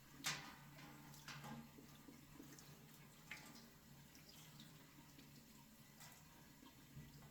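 Near silence with a few faint, short water drips and splashes, the first about a third of a second in the loudest.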